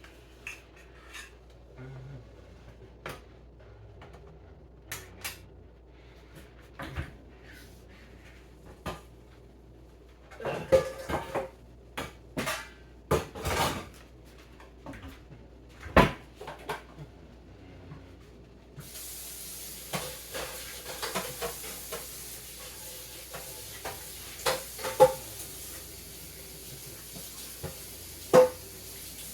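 Pots, pans and dishes being handled: scattered clinks and knocks, with a run of louder clattering a little over a third of the way in. About two-thirds of the way in a steady hiss starts and carries on under further clinks.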